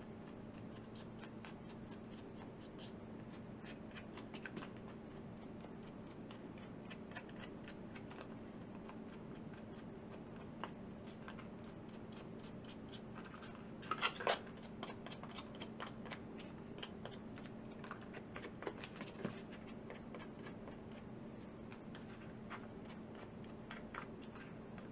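Faint scratchy rubbing and tapping of a distress ink pad dragged along the edges of a painted craft box, a run of small irregular scrapes with a louder scrape about 14 seconds in.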